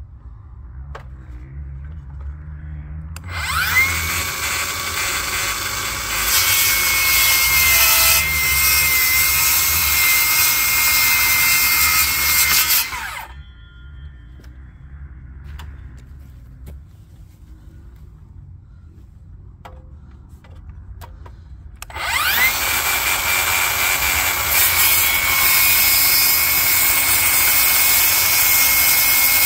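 Milwaukee circular saw cutting the top off a 4x4 post, twice: the motor whines up about three seconds in, gets louder as the blade goes into the wood, and stops about ten seconds later. After a quiet pause of about nine seconds with a few small knocks, it starts again and is still cutting at the end.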